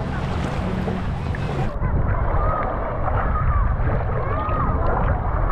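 Seaside ambience: wind buffeting the microphone over surf, with faint distant voices. About two seconds in, an edit makes the sound duller.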